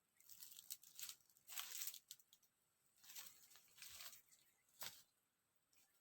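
Faint rustling in about five short bursts, with no voice or call.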